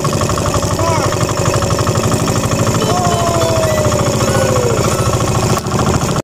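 Small outrigger boat's engine idling with a rapid, even chugging. A faint sliding tone falls in pitch about three to five seconds in.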